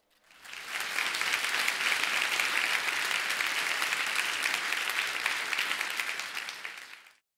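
Audience applauding, the clapping building in quickly and fading away shortly before the end.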